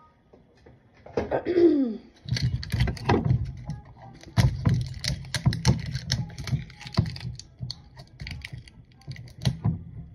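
Plastic shrink wrap being peeled and crinkled off a soda-maker CO2 canister: rapid, irregular crackling and clicking, with a short falling squeak about a second in.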